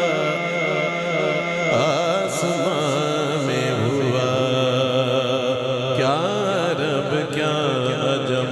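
Male naat singer holding long, wavering, ornamented sung notes through a sound system, over a steady droning accompaniment.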